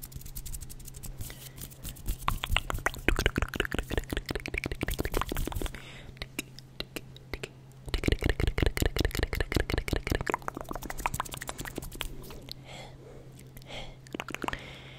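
Fast, aggressive ASMR mouth sounds close to the microphone: rapid runs of wet clicks and pops, in two long stretches, with sparser clicks near the end. A steady low hum lies underneath.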